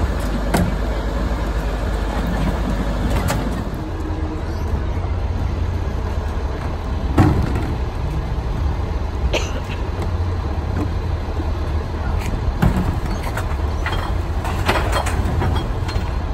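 Garbage truck engine running with a steady low rumble, with scattered knocks and clanks over it, the loudest about seven seconds in.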